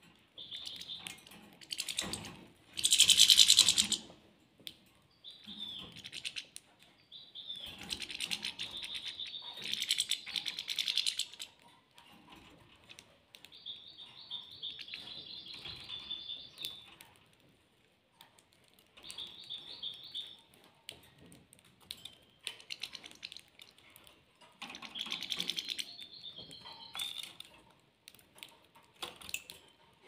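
Caged canaries and European goldfinches twittering in short bursts while they peck and crack seed from a feeding dish, with many small clicks. About three seconds in there is a loud rustling burst.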